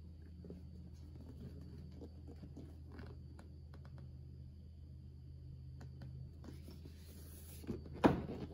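Cardboard figure box being handled and turned over: faint rustling, scraping and small ticks of cardboard. About eight seconds in there is one sharp knock as the box is set down on the wooden table.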